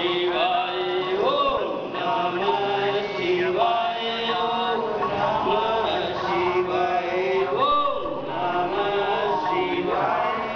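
Devotional mantra chanting by a male voice, sung in long held notes that slide up and down between pitches.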